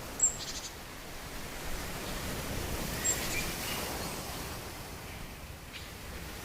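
Outdoor nature ambience: a steady rustling hiss, with a bird giving a short, sharp high chirp and brief trill twice, about three seconds apart.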